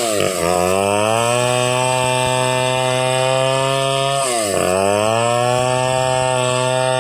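Stihl 070 two-stroke chainsaw running at high revs while sawing through pule wood. Its engine speed drops sharply twice, at the start and about four and a half seconds in, then climbs straight back up.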